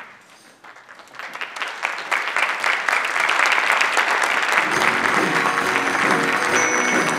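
Theatre audience applauding, building from a few claps to full clapping over about two seconds. Stage music comes in underneath about five seconds in.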